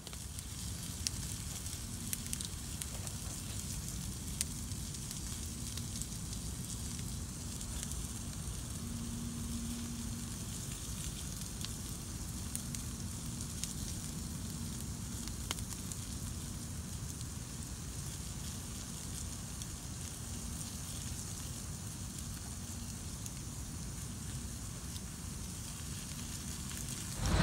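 Wood campfire burning, crackling steadily with scattered sharp pops over a low rumble.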